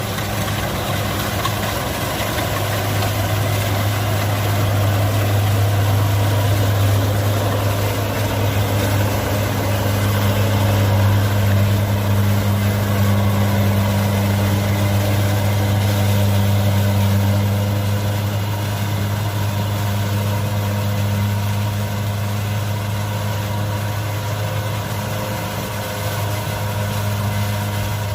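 Kubota DC70 combine harvester's diesel engine running steadily while the machine harvests rice, a constant low hum over mechanical clatter that swells slightly midway.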